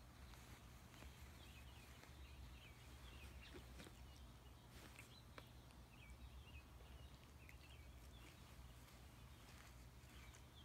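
Near silence: room tone with a steady low hum. Faint, wavering high chirps come and go through most of it, with a few soft clicks.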